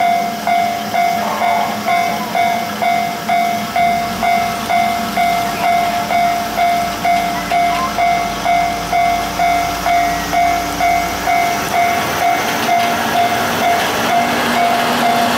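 Railway crossing warning bell ringing in a steady repeated ding, about 1.7 strikes a second, while a KiHa 52 and KiHa 28 diesel railcar pair pulls out. Their DMH17 diesel engines rumble under power from about four seconds in, and wheel and running noise swells near the end as the cars pass close by.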